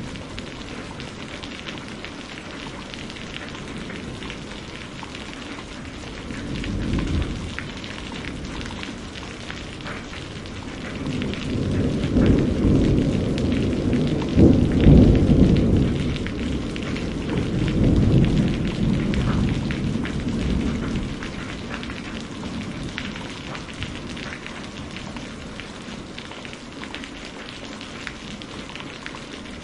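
Steady rain with rolling thunder: a short rumble about seven seconds in, then a longer, louder rumble building from about eleven seconds, peaking twice, and dying away after about twenty seconds.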